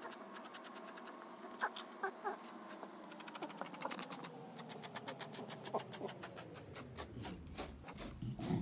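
A grooming brush being drawn through a Chow Chow's thick double coat: rapid scratchy strokes, many a second, with a few short squeaks about two seconds in and again near six seconds.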